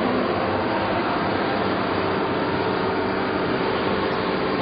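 Straight knife blade grinding machine running: a steady, even mechanical noise from the grinding head and its carriage motor, with a faint steady hum underneath.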